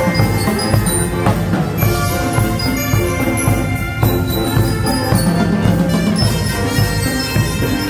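A carnival brass band playing: trumpets, saxophone and sousaphone over bass drum and other drums, in a tiled pool hall.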